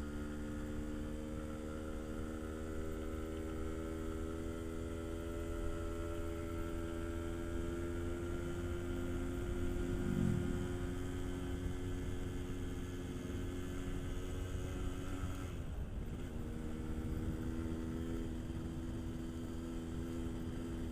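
Yamaha RX-King's two-stroke single-cylinder engine running under way. Its note sinks slowly over the first several seconds, then breaks off briefly about three quarters of the way through before picking up again.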